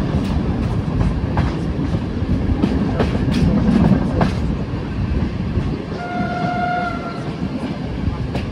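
Passenger train rolling slowly along the track: a steady rumble of the coaches with sharp clicks as the wheels cross rail joints. About six seconds in comes a single-note horn blast lasting about a second.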